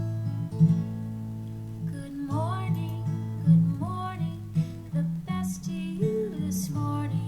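Music: plucked, strummed acoustic guitar under a melody line whose notes slide up and down.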